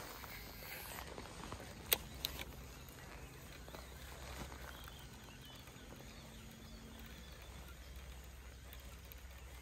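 Faint outdoor ambience with a low rumble, broken by two sharp clicks close together about two seconds in.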